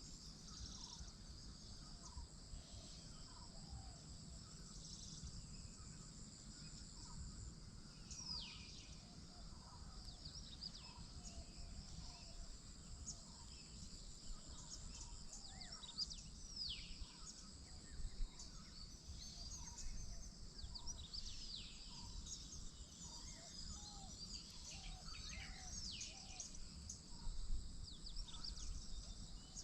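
Outdoor morning ambience: birds chirping with many quick downward-sweeping calls and a run of short repeated lower notes, over a steady high insect drone, with a low rumble underneath.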